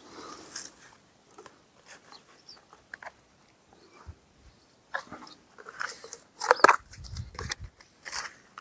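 Irregular rustling, crunching and clicking handling noises, with the loudest cluster about six and a half seconds in.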